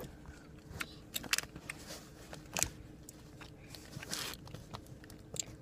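Faint, scattered clicks and crinkles from a small plastic gummy-candy package being handled, with a slightly longer crinkle about four seconds in.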